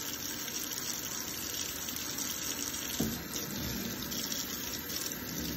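Water running steadily from a kitchen faucet into a stainless steel sink, splashing over a small child's hands as she rinses them. A brief knock about three seconds in.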